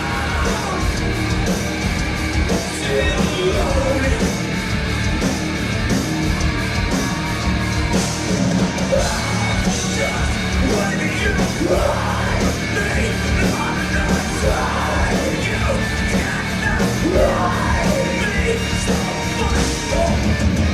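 Live rock band playing loudly, with a steady drum beat and yelling over the music.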